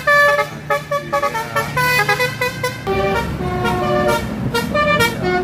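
Tour bus 'telolet basuri' multi-tone horn playing a quick tune of short and held notes. A bus engine rumbles underneath from about halfway.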